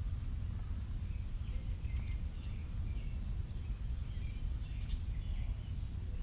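Steady low outdoor rumble, with faint, scattered chirps of small birds in the background.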